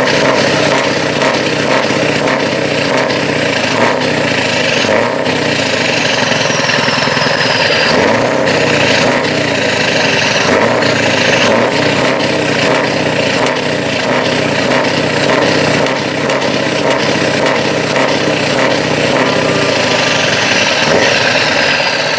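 Scania V8 truck engine idling steadily, heard close at its twin chrome exhaust tips.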